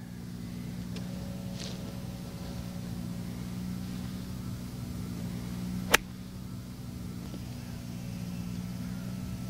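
A wedge strikes a golf ball on a pitch shot: one sharp click about six seconds in, over a steady low mechanical hum.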